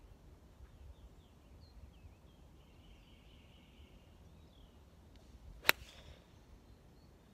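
A 4-iron striking a golf ball off the tee: one sharp click about five and a half seconds in. Birds chirp faintly throughout.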